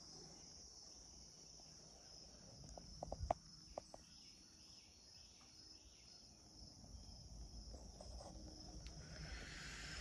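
Faint, steady, high-pitched insect chorus, with a cluster of sharp clicks a little past three seconds in and a short rush of noise near the end.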